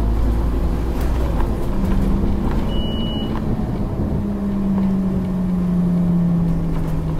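Scania N230UD double-decker bus's diesel engine and drivetrain heard from inside the saloon while the bus is under way: a steady low rumble with a droning tone whose pitch slowly falls over the last few seconds.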